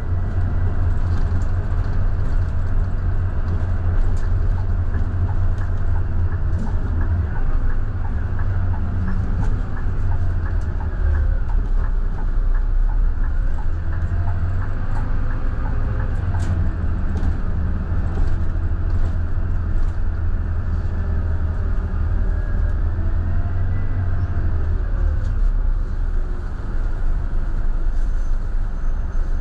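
Scania K320IB bus's five-cylinder diesel engine running under way, a steady deep drone with scattered light rattles and clicks.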